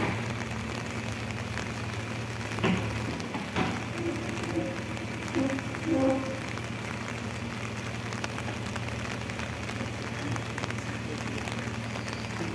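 Steady rain falling over the low, steady hum of a JCB 3DX backhoe loader's diesel engine running. Two sharp knocks come about three seconds in, and a few short faint tones follow in the middle.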